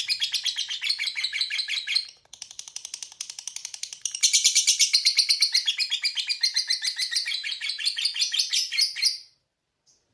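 Lovebird's long 'ngekek' chatter: a fast, unbroken run of shrill repeated notes, with a short break about two seconds in, louder again from about four seconds, and stopping about a second before the end.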